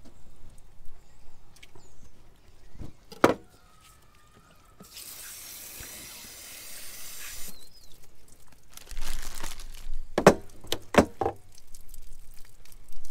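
Water spraying from the hand sprayer of a fish-cleaning table's faucet, a steady hiss lasting about two and a half seconds that starts about five seconds in. A sharp clack comes before it, and a few knocks follow near the end.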